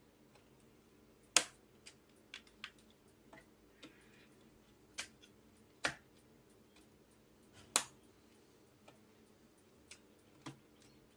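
Sharp plastic clicks and small taps, four of them loud, as DDR5 RAM sticks are pushed into the motherboard's memory slots and the slot latches snap shut.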